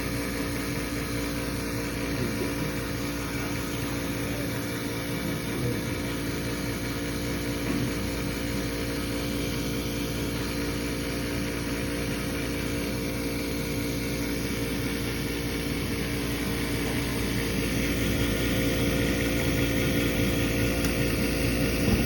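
Carrier 80% gas furnace's draft inducer motor running with a steady hum during the pre-purge, before the burners light; it gets somewhat louder over the last few seconds.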